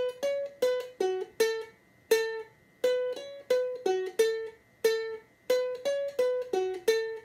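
Ukulele playing a slow single-note melody on its bottom string, frets 5, 7, 5, open, 3, 3, plucked three times over. The notes come evenly, each ringing briefly before the next.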